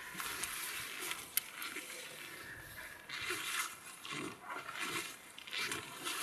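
Footsteps crunching and swishing through frozen snow as a person walks on wide snowshoes, an uneven run of strides that grows louder about halfway through. There is one sharp click about a second and a half in.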